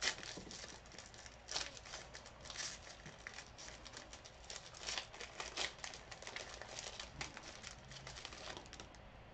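Trading-card pack wrappers crinkling and cards being handled: a faint, uneven scatter of rustles and small crackles.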